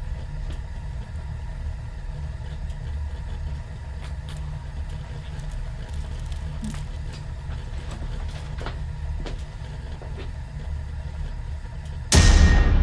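Steady low mechanical rumble with scattered faint clicks and rattles. Near the end comes a sudden loud boom that rings and slowly dies away.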